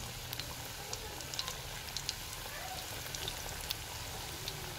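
Chicken pakoras deep-frying in hot oil in an aluminium karahi: a steady sizzle with scattered sharp crackling pops.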